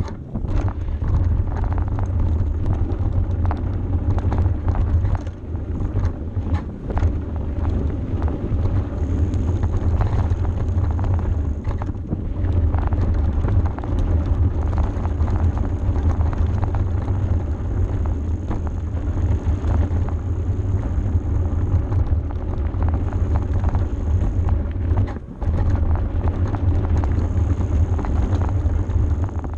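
Mountain bike rolling fast down a rough dirt and gravel track: heavy wind rumble on the bike-mounted camera's microphone, with the rattle and knocks of the tyres and frame over stones and bumps.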